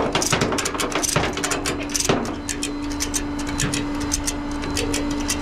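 Rapid, uneven mechanical clicking over a low hum, with a steady whine setting in about two seconds in.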